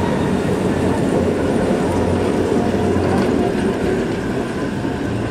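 Vintage electric trams and a trailer car rolling past close by on a curve, steel wheels running on the rails with a steady rolling noise.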